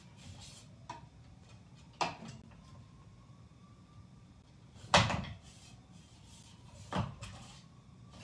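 Sharp knocks of kitchen cabinetry being opened and shut, four in all, the loudest about five seconds in.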